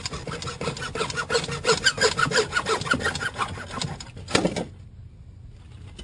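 Hand saw cutting through 1½-inch PVC sump discharge pipe in quick back-and-forth strokes. The sawing stops about four and a half seconds in, as the pipe is cut through.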